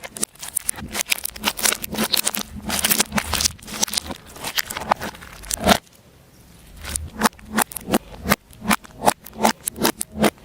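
Slime being squeezed and poked, giving dense crackling clicks and pops. After a brief lull about six seconds in, the pops come singly, two or three a second.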